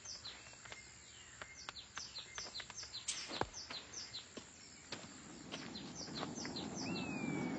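Jungle ambience with a bird repeating short, high, downward-sweeping chirps about three times a second, with scattered faint clicks. A low rumble swells over the last couple of seconds.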